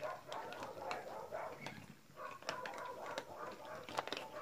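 Many cats eating dry cat food from a shared bowl: irregular rapid crunching and clicking of kibble.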